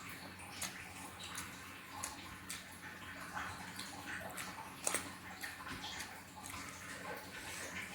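Close-up eating sounds of a person chewing fried fish: irregular mouth clicks and smacks, with one sharper click about five seconds in.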